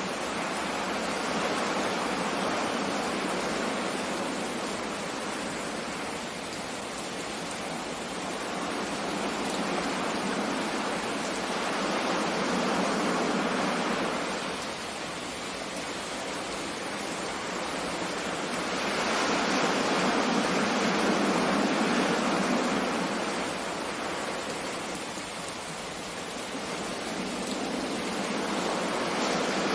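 Sea surf: a steady rushing of water that swells and eases every several seconds as waves wash in and draw back.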